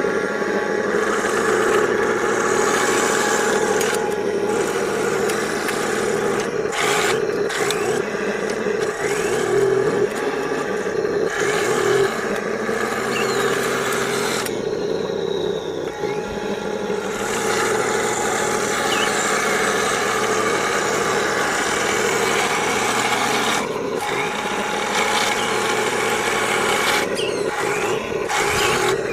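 MATO 1/16 all-metal Tiger I RC tank running, its onboard sound unit playing a steady simulated tank-engine sound.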